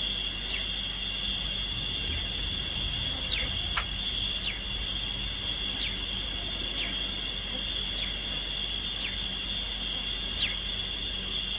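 Steady high-pitched insect drone, with a bird giving short downward-sliding whistles every second or so.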